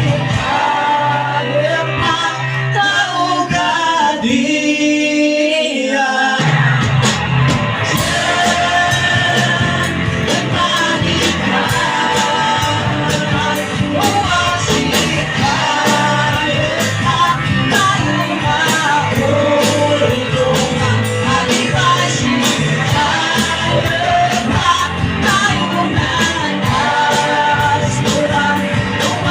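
Live band playing a rock song with a singer. About four seconds in, the bass and drums drop out for about two seconds, then the full band comes back in with the drums.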